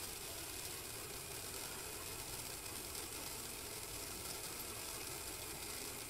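A pistil waterfall firework burning with a steady, even hiss.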